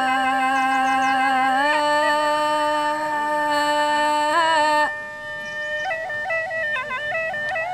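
Tai Lue khap accompaniment on a wind instrument. It holds a long reedy note that steps up in pitch near the two-second mark and breaks off about five seconds in. A quieter, ornamented melody of short stepping notes follows.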